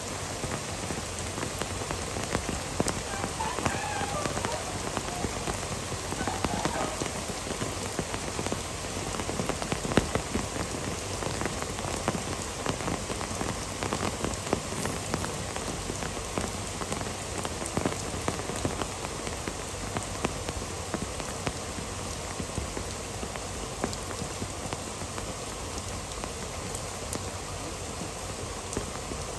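Heavy rain falling steadily in a downpour, with many sharp ticks of single drops striking close by.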